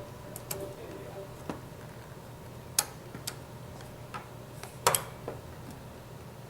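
A handful of irregular sharp clicks and taps of small hard parts and tools being handled, about seven in all, the loudest about three seconds in and about five seconds in, over a steady low hum.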